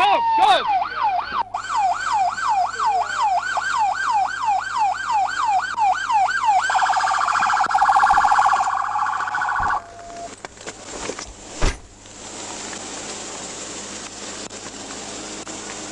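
Police car siren in a fast repeating yelp, about three sweeps a second, switching to a faster warbling tone about halfway through, then cut off. A single thump follows shortly after, over a steady hum.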